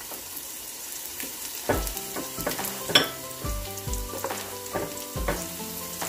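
Diced onion, garlic and carrots sizzling in hot oil in a stainless steel pot, with more diced carrots dropped in. Soft background music with held notes and a light beat comes in under the sizzle about two seconds in.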